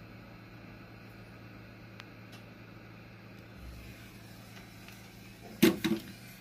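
Steady low electrical hum of workshop equipment. Near the end come two short, loud sounds in quick succession.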